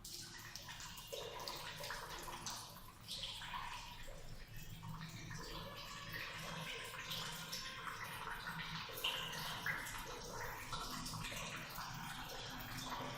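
Salt water from a neti pot running through the nose during jala neti, trickling and dripping steadily out of the other nostril.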